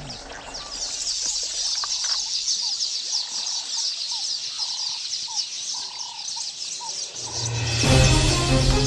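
Dense chorus of birds chirping: many quick, high, falling chirps overlapping, with a few short lower whistled notes. Electronic music with a steady bass note comes in near the end and becomes the loudest sound.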